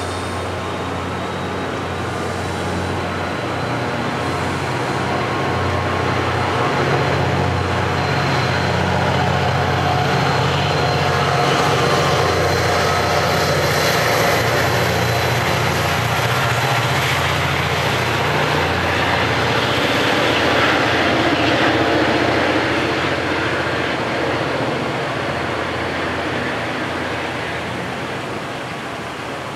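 Diesel-hauled push-pull passenger train passing through a grade crossing: coaches rolling by, then the diesel locomotive at the rear running as it goes past. It is loudest in the middle and fades as the train moves off.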